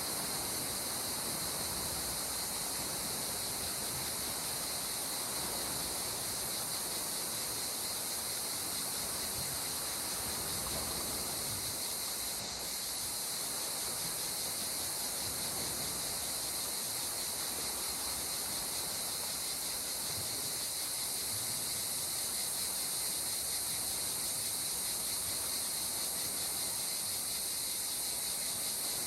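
Steady seaside nature ambience: a high, unbroken insect chorus over a soft wash of water, with a brief dip about twelve seconds in.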